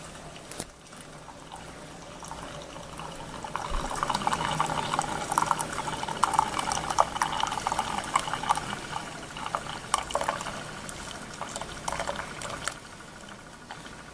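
Keurig Special Edition single-cup coffee maker brewing: hot coffee streaming and splashing into a mug with a crackling, sputtering sound over a low machine hum. The stream grows louder a few seconds in and dies away near the end.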